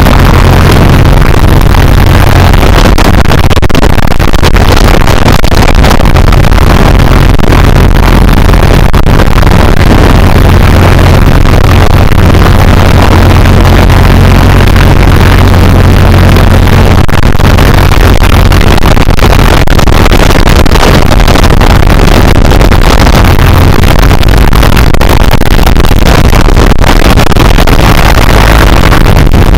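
Piper Super Cub's engine and propeller running steadily at low taxi power, a loud low drone heard from inside the cockpit. The sound is so loud that it overloads and distorts the microphone.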